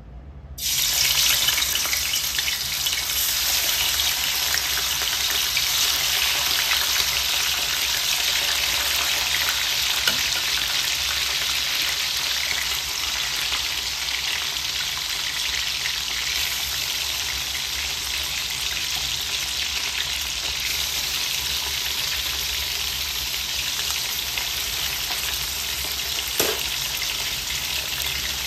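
Chicken pieces frying in hot oil in an aluminium wok: a loud sizzle that starts suddenly about half a second in, as the raw chicken goes into the hot oil, and then runs on steadily. A single light knock near the end.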